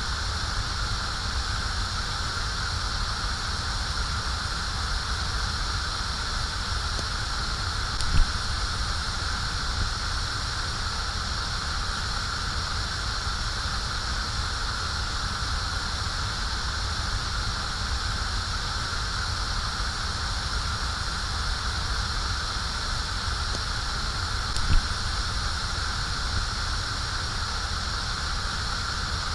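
Gas flame burning with a steady rushing hiss over a low rumble. Two brief pops break in, one about 8 seconds in and one near 25 seconds.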